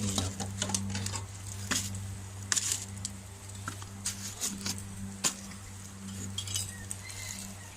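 Kitchen utensils clinking and knocking against dishes while a dish is being seasoned: scattered light clinks, about a dozen, over a steady low hum.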